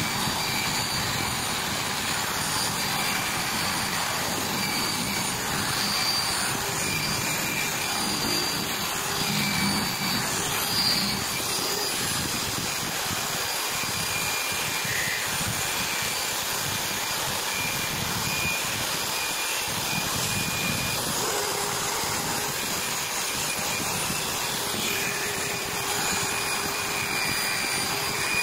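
Small hand-held electric motor spinning a wire brush wheel against a rusty steel crank handle, a steady whir of motor and wire-brushing on metal, cleaning off the rust.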